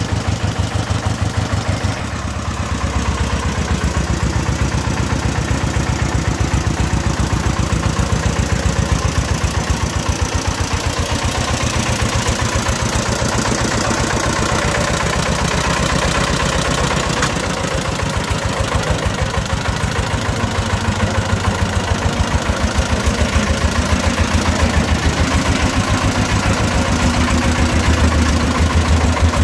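Single-cylinder diesel engine of a công nông three-wheeled farm truck running steadily under a brick load at low speed as it is manoeuvred, with a rapid, even firing beat.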